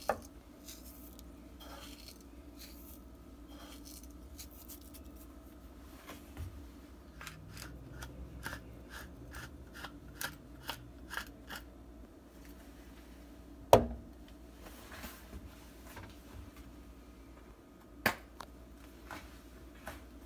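Small clicks and light taps of a plastic measuring spoon and a glass measuring cup as dry spices are spooned in, over a faint steady hum. A run of even clicks at about two a second comes in the middle, and two sharper knocks stand out, one a little past halfway and one near the end.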